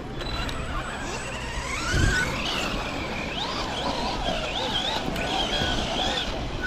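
Electric motors of large RC monster trucks whining, their pitch rising and falling with throttle, over tyre and wind noise.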